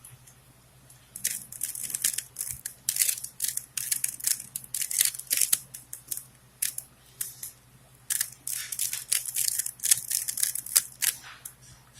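Rubik's Cube being turned rapidly by hand: plastic layers clicking and scraping in quick runs of turns, broken by short pauses.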